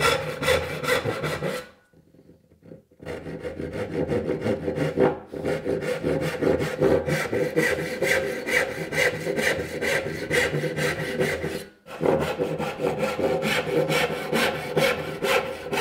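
Brass-backed dovetail saw cutting by hand down the sides of dovetail pins in a walnut board, quick even back-and-forth strokes at about three a second. The sawing stops for about a second after a second and a half, then runs on with two brief breaks as the saw moves between cuts.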